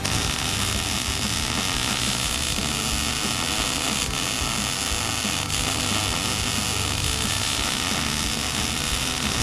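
Electric welding arc running steadily, an even crackling hiss with no breaks, as a bead is laid to build up a worn groove in a wire stripper.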